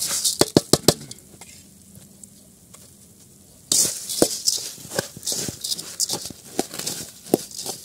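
A metal spoon stirring dry puffed rice in a metal bowl as it is tossed with chicken gravy. The grains rustle and rattle, and the spoon clicks against the bowl. The stirring stops about a second in and starts again just before four seconds.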